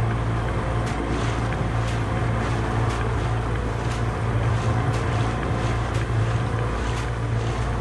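9.9 hp Mercury outboard motor running steadily under way, pushing a heavily loaded inflatable boat.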